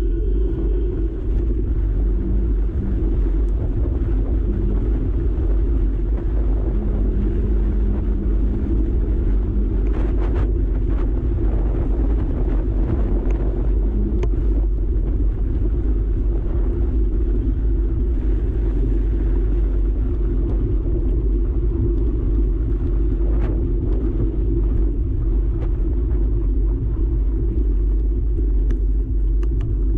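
Steady low rumble from a handlebar-mounted action camera on a moving mountain bike: wind buffeting the microphone and tyre and handlebar vibration from the road surface, with a few faint knocks.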